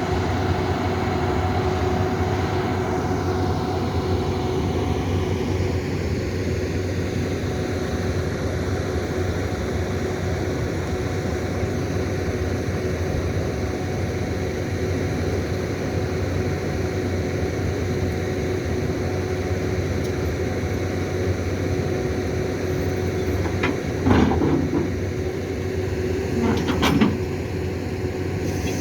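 Kobelco SK200 excavator's diesel engine running steadily with a steady hum. A higher whine falls in pitch over the first few seconds, and two loud metallic clanks come close together near the end.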